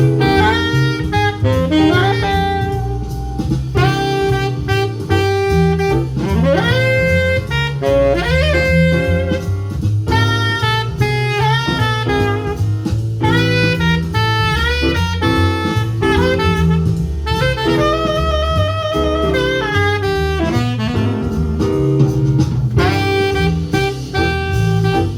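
Jazz band playing after a count-in: a lead horn, most like a saxophone, plays the melody in fast runs over bass and drum kit.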